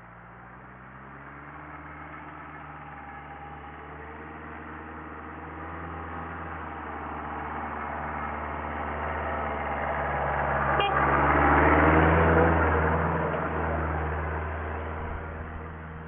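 Land Rover Defender engine running as the 4x4 drives slowly toward and past, growing louder to a peak about twelve seconds in and then fading. There is a single sharp click just before the loudest point.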